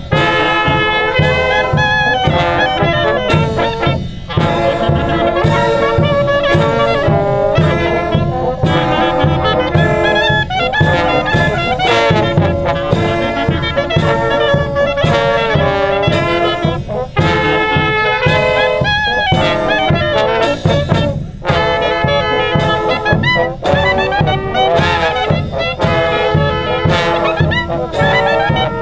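Small brass band with a bass drum playing a polka, a clarinet carrying the tune over trumpets and horns, with a steady drum beat.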